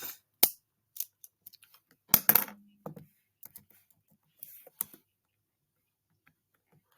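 Scattered sharp clicks and light knocks at uneven intervals, the loudest cluster about two seconds in.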